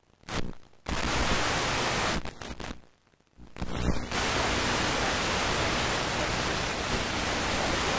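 Loud steady static hiss from an unrecorded stretch of videotape. It drops out briefly about three seconds in and then resumes.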